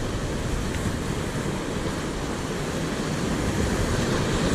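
Ocean surf washing against a rocky shore, a steady rush of noise mixed with wind buffeting the microphone.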